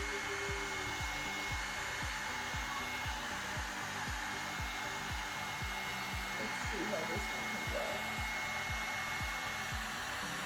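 Hair dryer brush blowing steadily, a constant airy rush with a thin high whine, while it is worked through hair. A soft low beat pulses underneath about three times a second.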